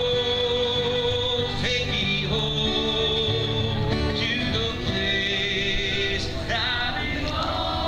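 Live country music from a duo with guitars and voices, amplified through PA speakers, with long held sung notes.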